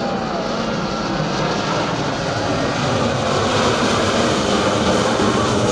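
Jet aircraft flying over: a formation of a large jet and two fighter jets gives a steady jet-engine noise that slowly grows louder as it approaches.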